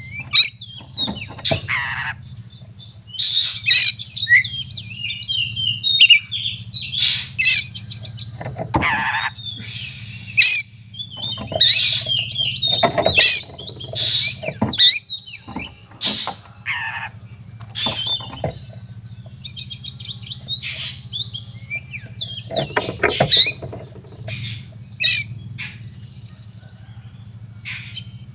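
Oriental magpie-robin (kacer) in full agitated fighting song: a rapid, unbroken run of varied whistles, chirps and harsh squawking notes, over a steady low hum.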